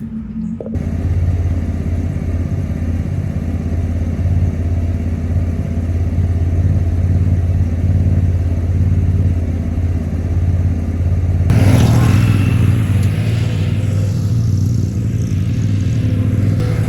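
Zero-turn mower engine running steadily, dragging a length of old fence behind it to level bare soil. About eleven seconds in the sound turns fuller and noisier.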